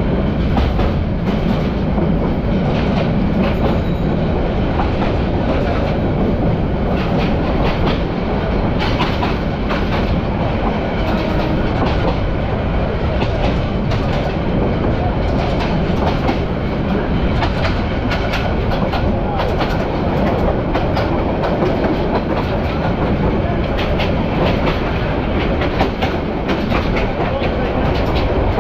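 Agnibina Express passenger train of Bangladesh Railway running at speed, heard from inside the carriage: a steady rumble with the wheels clattering over rail joints in irregular runs of clicks.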